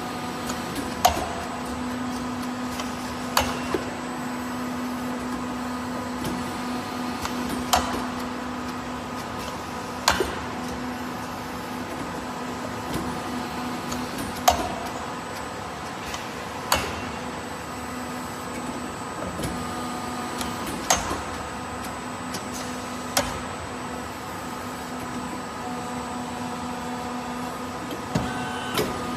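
Four-column stamping press running automatically: a steady hum with a constant low tone, and sharp metallic knocks in pairs about two seconds apart, each pair repeating every six to seven seconds as the ram cycles.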